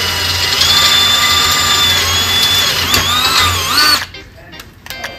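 Cordless Snap-on drill boring a twist bit through a broken steel bolt in a bracket, drilling it out to save the threads. The motor's whine steps up in pitch under a second in, wavers as the bit works the metal, and cuts off suddenly about four seconds in.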